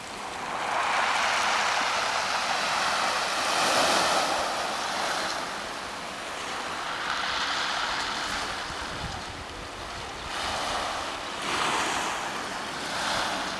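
Small waves washing onto a pebble beach: a hiss that swells and fades every few seconds.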